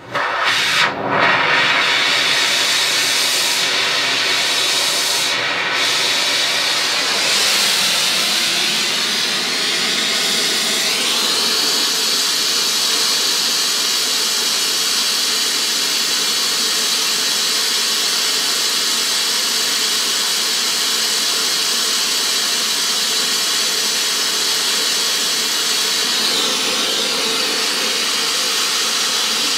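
Gas torch flame hissing steadily as it heats the end of a steel rivet blank to forging heat. It comes on suddenly and wavers for the first couple of seconds, then settles, its tone shifting slightly about eleven seconds in and again near the end.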